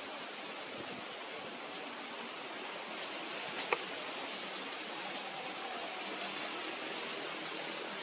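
Steady background hiss with no clear calls, and one short, faint tick a little after the middle.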